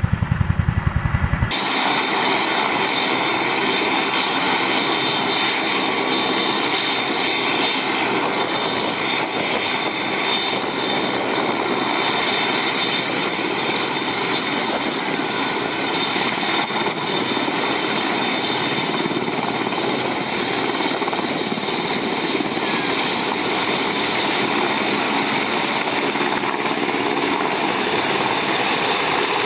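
For the first second and a half, the deep rhythmic rotor thump of a CH-47F Chinook. Then, after an abrupt change, an AgustaWestland AW101 helicopter's three turboshaft engines and main rotor run steadily: a dense rotor and turbine noise with a thin steady whine, as the helicopter lifts off and flies low.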